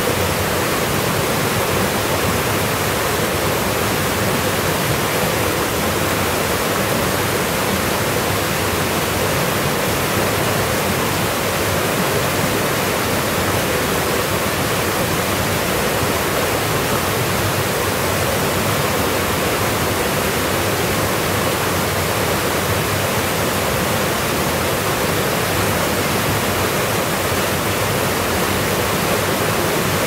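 Steady rush of a rocky forest stream pouring over small cascades.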